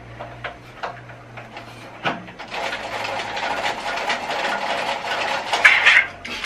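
A few sharp clicks and knocks from parts being handled on a benchtop planer, then a few seconds of crinkling plastic packaging as a part is unwrapped, loudest near the end.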